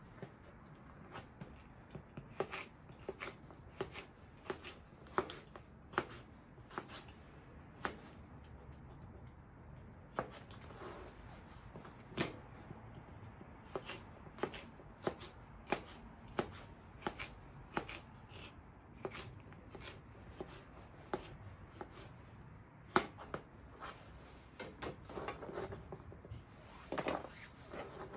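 Kitchen knife slicing a red bell pepper into strips on a white plastic cutting board: irregular sharp knocks of the blade on the board, about one a second.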